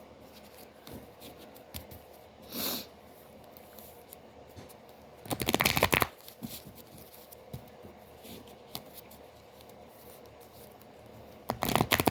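A deck of tarot cards being shuffled: two loud rustling bursts of shuffling, one about five seconds in and another near the end, with light card handling ticks between them.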